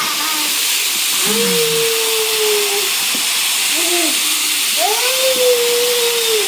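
A young child's voice making two long, drawn-out sounds, each held for over a second and slowly falling in pitch, with a short sound between them, over a steady hiss.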